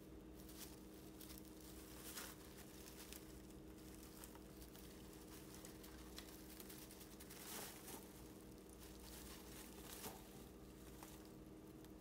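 Faint rustling and crinkling of hay as baby rabbits shift about in their nest, with a few short, slightly louder rustles scattered through, over a steady faint hum.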